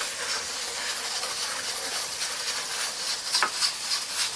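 Melted butter and oil sizzling steadily in a frying pan, with one light tap about three and a half seconds in.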